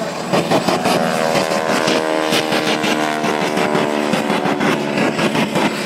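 Engine of a small aerobatic airplane trailing smoke as it passes, a loud steady drone whose pitch falls slowly, with crackle throughout.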